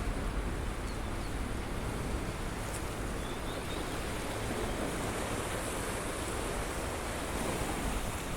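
Steady rush of sea surf, mixed with wind.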